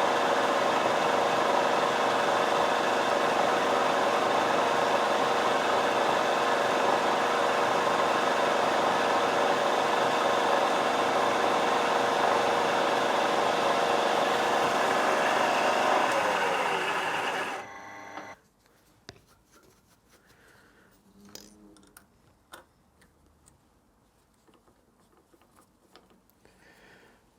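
A workshop machine runs steadily with a constant multi-tone hum, then is switched off and winds down, falling in pitch, about 17 seconds in. After that come only a few light clicks and knocks of handling.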